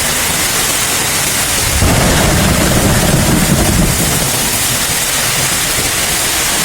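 Heavy storm: a steady hiss of rain and wind, with a louder low rumble from about two to four seconds in.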